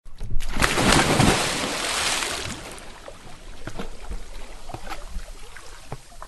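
A splash into water: a sudden loud rush of spray that lasts about two seconds, then settles into sloshing with scattered small drips and trickles, fading away.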